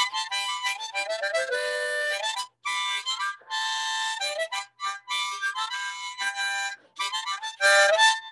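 Harmonica cupped in both hands, played in short phrases of quick notes and chords with brief breaks between them.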